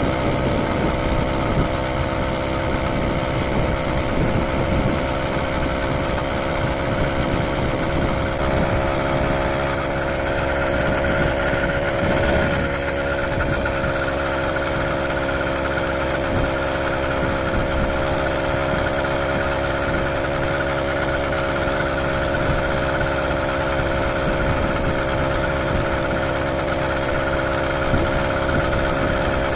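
Small 80cc two-stroke motorized bicycle engine running steadily at cruising speed, over a rough rumble of wind on the microphone.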